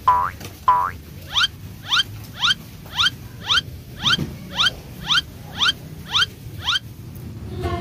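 Cartoon squeaky-step sound effect: after two short buzzy tones, a run of about eleven short rising squeaks, about two a second, in step with walking feet.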